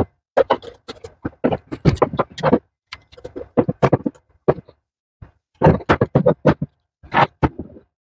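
Quick, irregular clicks and clinks of a screwdriver and small metal parts as the screws of a home espresso machine's thermoblock are undone and the parts handled.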